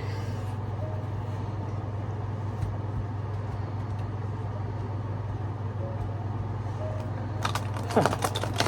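Steady low hum under faint background noise, with a brief flurry of sound near the end.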